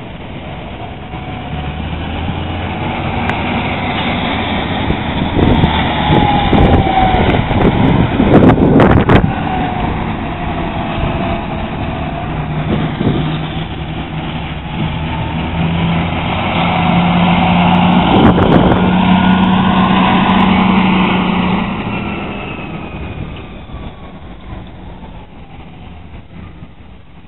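Farm tractor running under load as it hauls a high-sided trailer of harvested maize past, its engine getting louder as it comes nearest and then fading away near the end. A few clanks and rattles, likely from the trailer, come a few seconds in and again later.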